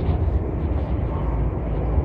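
Steady low rumble with a hiss of noise over it: the background din of a large indoor hall.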